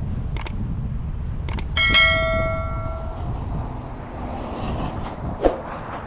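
Subscribe-button sound effect: two clicks in the first two seconds, then a bell notification ding about two seconds in that rings out for about a second and a half. Steady low road and wind rumble from a moving car runs underneath, and another short sharp sound comes near the end.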